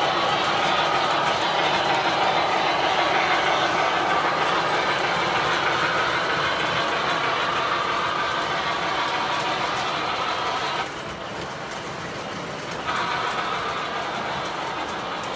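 O scale model freight trains rolling on the layout track: a steady whir and rumble of metal wheels on rail and the locomotives' electric motors, with two trains passing on parallel tracks. About eleven seconds in, the higher part of the sound drops away for about two seconds, then returns a little quieter.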